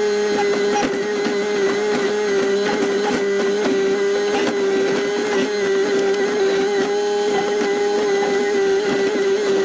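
Excavator engine and hydraulic pump running steadily with a constant whine, heard from inside the cab, with scattered knocks as the bucket works the dirt and rubble.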